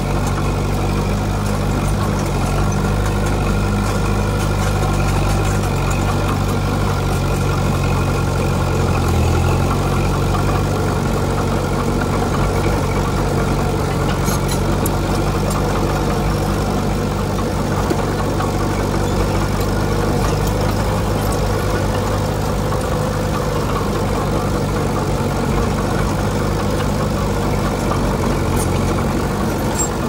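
Diesel engine of a Komatsu D20P bulldozer running steadily, its pitch shifting briefly about nine or ten seconds in.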